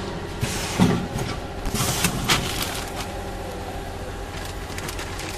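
Plastic packaging film crinkling and rustling in short irregular bursts as sealed pouches are handled, over the steady hum of a running packing machine.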